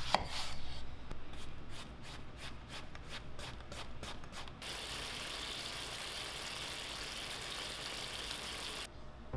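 Halved eggplants cooking in a frying pan of simmering seasoning liquid: quick regular popping, about three or four pops a second, for the first half, then a steady sizzle that cuts off shortly before the end.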